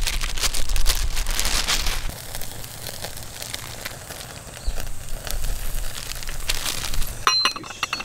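Plastic bag crinkling as enoki mushrooms are shaken out of it into a pot during the first couple of seconds. About seven seconds in, a few sharp metallic clinks as the Uniflame Dutch oven's metal lid is set back on the pot.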